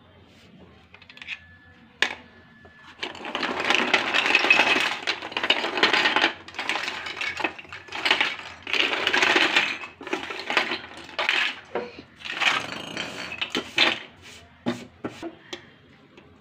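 Hard plastic pieces of a Hello Kitty toy kitchen set (toy fruit, pots and cups) clattering against each other and the tray as they are gathered and moved, in several bursts of dense rattling with sharp clicks between them.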